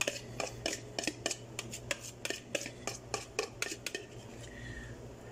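Metal spoon clinking against a cup as something is stirred, quick irregular clinks that die away about three and a half seconds in. A low steady hum runs underneath.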